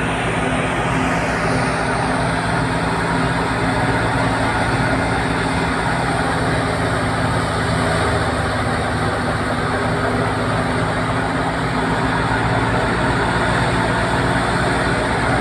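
Fiat 640 diesel tractor engine running steadily, driving a wheat thresher as sheaves are fed into it, with the thresher running loudly alongside.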